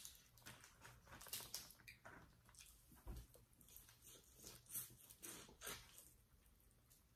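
Faint eating sounds from a seafood boil: chewing and mouth smacks with scattered small clicks and crackles, and a soft low bump about three seconds in.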